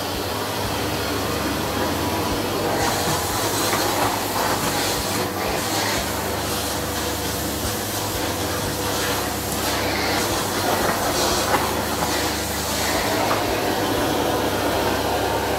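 Canister vacuum cleaner running steadily at full suction, a constant loud whooshing drone as the floor is vacuumed.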